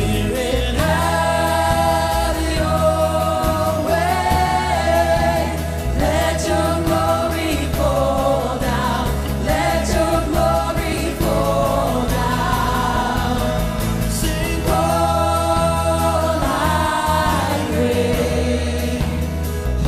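Live worship band: several female singers singing together over acoustic guitar, bass guitar and keyboard.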